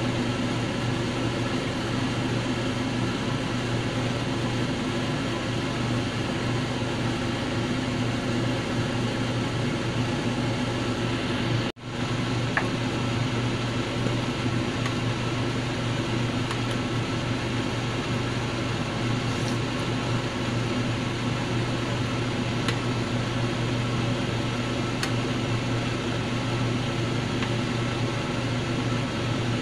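Steady electric hum with an even hiss, like a fan or kitchen appliance motor running. The sound drops out for an instant about twelve seconds in.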